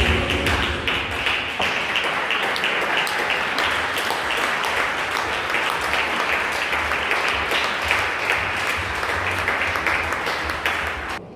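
Audience applauding after a dance: a dense patter of many hands clapping that cuts off suddenly near the end.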